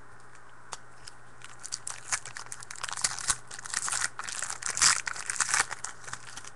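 Foil wrapper of a trading-card pack being torn open and crinkled: crackly rustling that starts about a second and a half in and is loudest about five seconds in.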